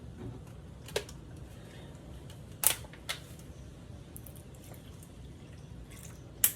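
A few sharp clicks and taps of kitchen containers and utensils being handled at a pot, four in all, the loudest near the end, over a low steady hum.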